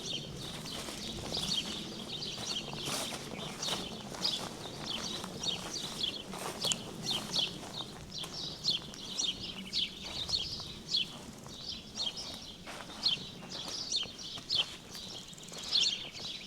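Songbirds singing: a dense run of short, rapid, high chirps with no pause, and an occasional footstep on the path.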